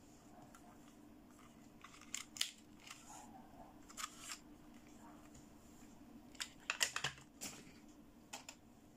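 Hard plastic clicks and taps as a toy makeup palette case is handled and set down on a wooden tabletop, in small clusters with the busiest run about seven seconds in, over a faint steady hum.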